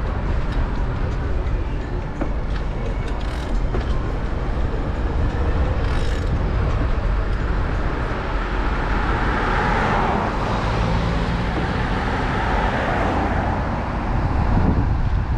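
Steady noise of a vehicle travelling along a road, swelling louder about ten seconds in before settling again.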